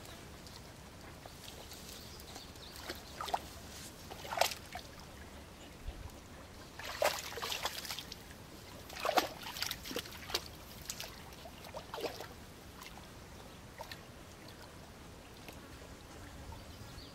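Water splashing and trickling in a handful of short bursts, the longest a brief cluster about seven seconds in, over a faint steady background.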